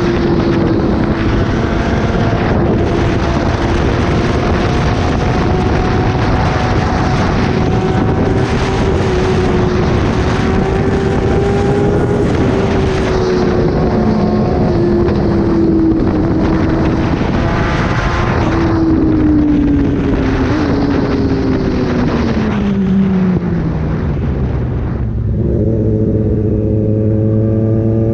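Kawasaki ZX-10R inline-four through an SC-Project exhaust, running at a steady pitch while riding. About two-thirds of the way in the pitch falls steadily as the bike slows, then settles into a low, steady rumble near the end.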